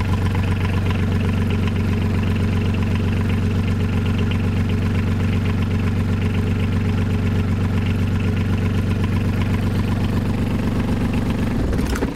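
Marine diesel engine idling steadily just after starting, with raw cooling water from its wet exhaust splashing into a tub. The good flow of water shows the raw-water cooling system is working. The engine is shut off right at the end.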